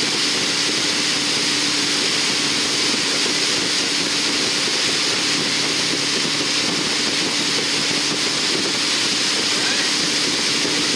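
Tow boat engine running at a steady cruising speed, a constant hum under the hiss of rushing wake water.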